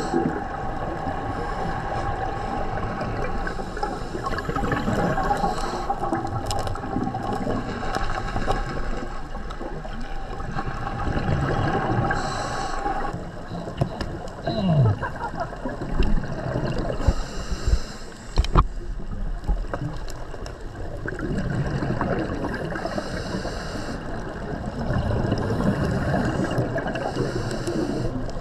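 Steady, muffled water noise with gurgling bubbles, as recorded by a camera underwater on a scuba dive, with a few knocks.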